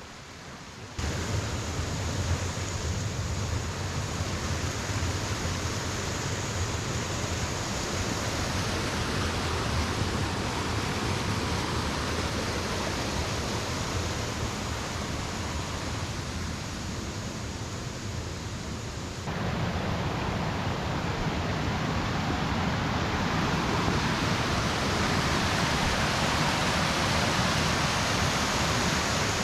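Rushing stream water, a steady hiss and rumble, from a mountain run flowing high after heavy rain. The level jumps up about a second in and again just past the middle.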